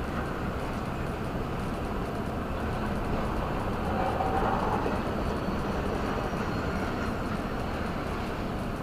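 Tyre and road noise of a car on a wet road, heard from inside the cabin, mixed with the wheel noise of an intermodal freight train's last flatcars passing alongside. It gets a little louder about four seconds in.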